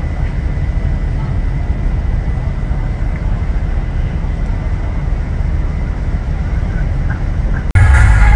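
Steady low rumble with a faint thin tone above it. Loud music cuts in suddenly near the end.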